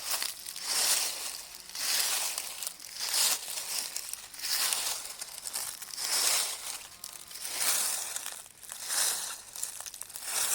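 Footsteps crunching through dry fallen autumn leaves, one crackling step about every second and a bit, at a slow walking pace.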